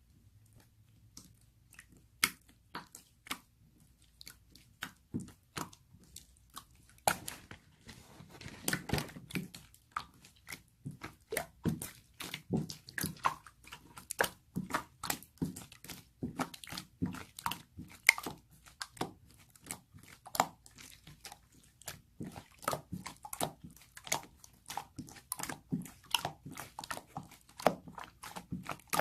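Runny clear slime being squished and pressed by hand, giving sticky clicks, a few scattered at first and then several a second from about seven seconds in.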